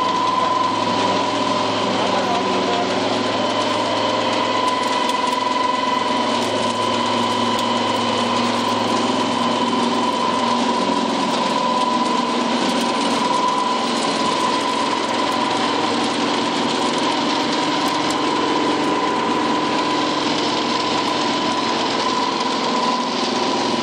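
Small animal feed pellet mill running steadily while being fed mixed meal, a constant mechanical drone with a high, even whine.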